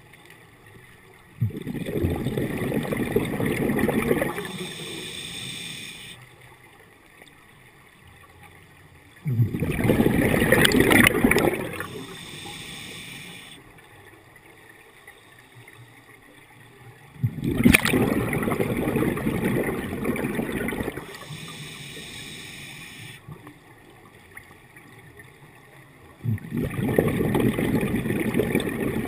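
A scuba diver breathing through a regulator underwater: four bursts of exhaled bubbles gurgling from the regulator, each starting suddenly and lasting about three seconds, about every eight seconds, with quieter breathing between.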